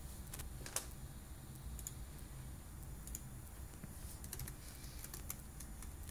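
Faint, irregular light clicks over a low steady hum.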